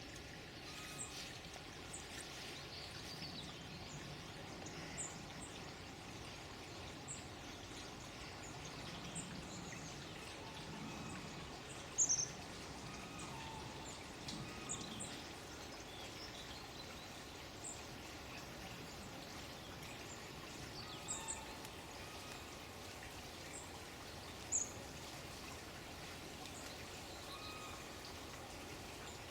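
Running water with birds chirping now and then: a steady rush of water under short, high chirps, the loudest about twelve seconds in.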